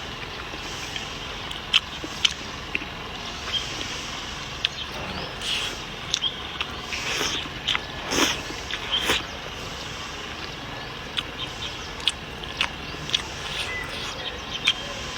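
A person eating a bowl of rice noodles with pork trotters: scattered short slurps, chewing and light clicks of utensils against the bowl, over a steady background hiss.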